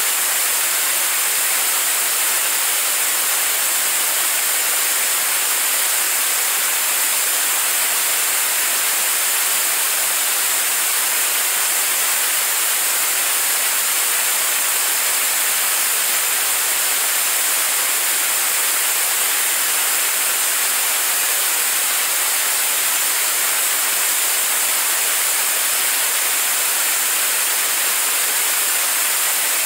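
Staged-combustion liquid rocket engine firing steadily in a hot-fire test: a loud, constant rushing noise without pitch or pulses, heavy in the highs with no low rumble, as in a long steady-state burn.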